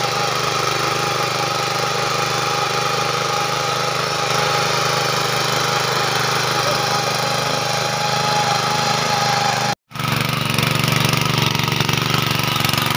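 Mini tiller's small petrol engine running steadily under load as its rotating tines work the soil. The sound cuts out for an instant about ten seconds in, then the engine is heard running again, a little louder.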